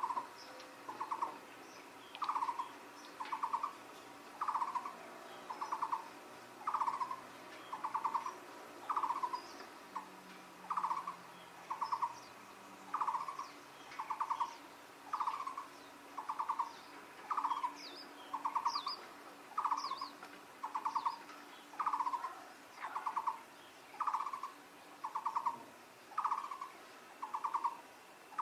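Taiwan barbet calling: a short, rapid pulsed trill, repeated steadily about once a second. Faint high chirps from small birds sound in the background.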